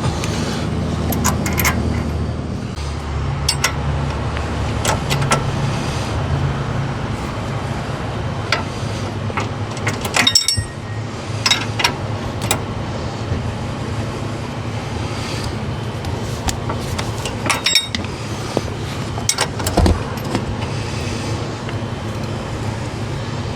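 Scattered metallic clicks and clinks of tools and suspension hardware being handled while a sway bar link is fitted, over a steady low hum.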